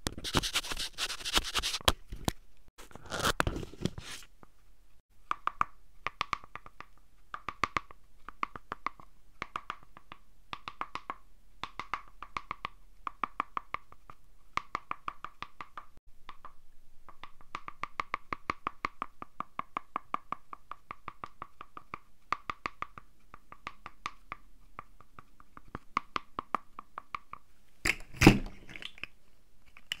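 Paper dragon puppet's folded-paper head and jaws working against a microphone: a rustle at first, then long runs of rapid crisp clicks and crunches as the paper jaws snap. A single loud thump comes near the end.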